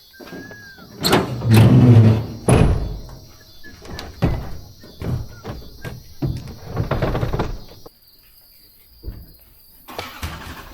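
A vehicle door clunking, with heavy thumps followed by a run of knocks and rattles. The sound then drops away to a faint steady high insect buzz.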